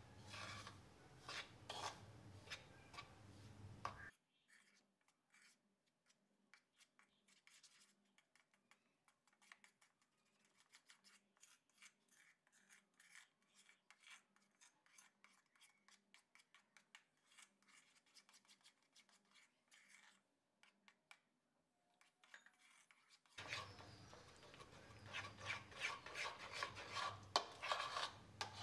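A metal spoon stirs and scrapes a milk-powder mixture around a bowl, with quick scraping and clicking strokes. These are busy for the first few seconds, faint through the middle and busy again near the end.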